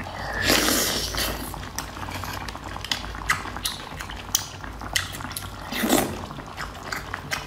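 Close-miked eating of saucy shellfish: wet slurping and chewing, with short clicks of chopsticks against the shell.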